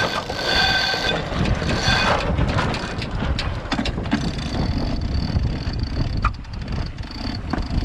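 Wind buffeting the microphone on a sailboat under way, with scattered clicks and rattles. Faint steady high tones drop out about 2 seconds in and come back halfway through.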